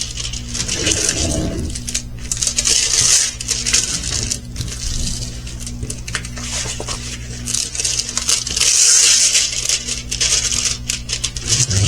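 Plastic packaging of a diamond painting kit crinkling and rustling as it is handled, with small clicks and rattles.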